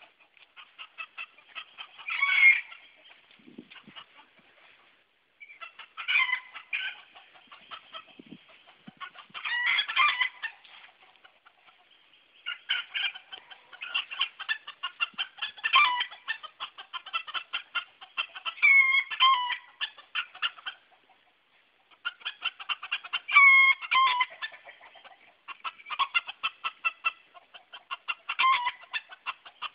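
Silver Sebright bantam roosters clucking in alarm, in bouts of rapid clucks every few seconds with a few louder, drawn-out squawks among them: the birds are frightened by an unfamiliar object on their porch.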